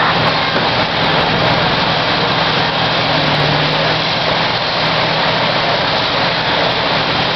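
Fire engine running steadily as it pumps water to the hose lines, a low even hum under the hiss of the hose streams.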